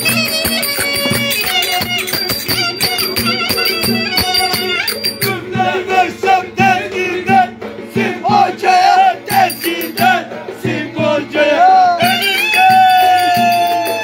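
Live folk music: a strummed banjo, a trumpet holding long steady notes at first, then a man singing with wavering, sliding pitch, over rhythmic rattling percussion. A long held note closes the passage.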